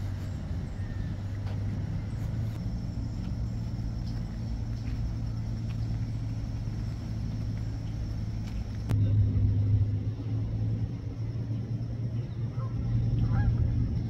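Geese honking over a steady low rumble. The rumble jumps louder with a sharp click about nine seconds in.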